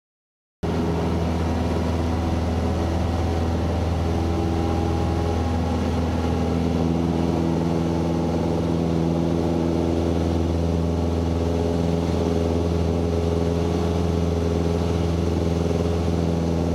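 Cessna 150's four-cylinder Continental O-200 engine and propeller, heard from inside the cockpit, running steadily at high power on the takeoff roll. It cuts in abruptly about half a second in, then holds an even pitch and level.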